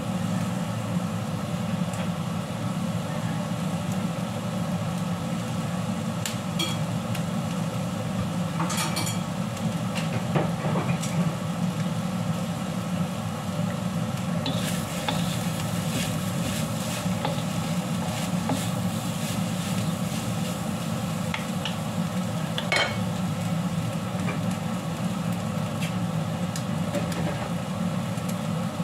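Noodles sizzling as they fry in a wok over a steady low hum. A few light clicks of a spatula against the wok are heard, and the sizzle gets louder from about halfway, when the noodles are stirred.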